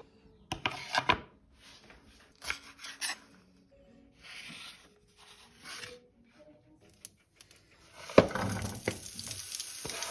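Short bouts of scraping and knocking on a wooden cutting board. About two seconds from the end, diced potatoes and peppers are pushed off the board into a hot frying pan, clattering in and starting to sizzle steadily.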